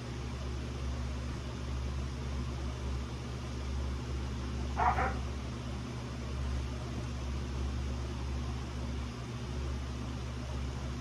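A poodle puppy gives one short yip about five seconds in, over a steady low hum.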